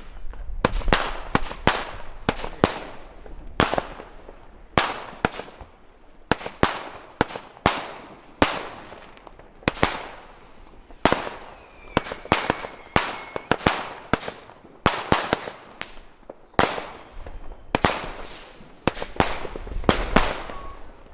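Consumer firework battery (cake) firing salutes: a long run of sharp loud bangs, about two or three a second and unevenly spaced, each trailed by crackle. A faint whistle is heard about twelve seconds in.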